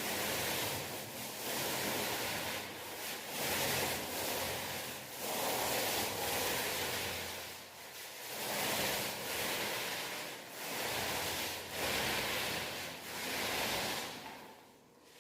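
Paint roller rolling paint onto a wall in repeated back-and-forth strokes: a rasping hiss that swells and fades about once a second, easing off near the end.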